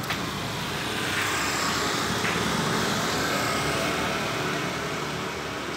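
A motor vehicle passing on the street close by: its noise swells about a second in and fades away near the end.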